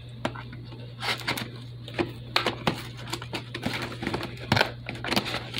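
Treasure X Robots Gold toy box of cardboard and plastic being handled and turned over: irregular crinkles, scrapes and light knocks, the loudest about four and a half seconds in.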